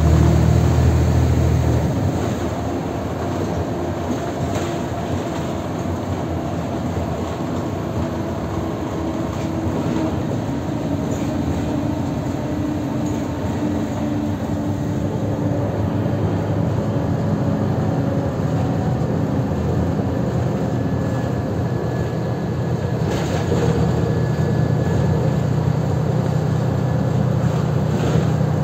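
Inside a moving city bus: a steady engine drone with road noise and cabin rattle. It is louder for the first couple of seconds, eases, then builds again near the end, with a few short knocks along the way.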